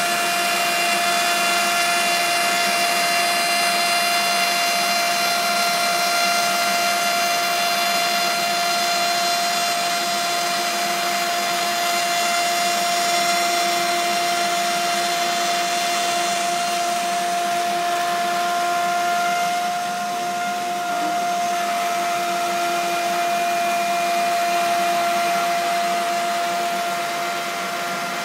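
An electric power tool motor running steadily, with a constant high whine over a hiss, easing slightly about two-thirds of the way through.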